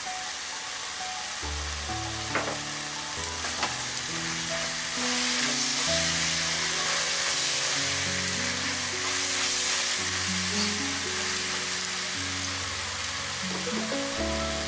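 Pork slices sizzling in a hot wok as chopped spring onions are stirred in with chopsticks; the sizzle grows louder about five seconds in. Two sharp clicks come in the first few seconds, under soft background music with held notes.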